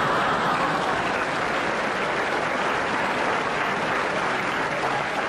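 Live theatre audience applauding steadily: a round of applause for a punchline in a stage comedy sketch.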